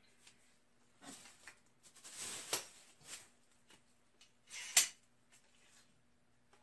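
Handling noises from a polyurethane crack-injection cartridge and a caulking gun: a few short rustles and scrapes, then one sharp click about five seconds in as the cartridge is fitted into the gun.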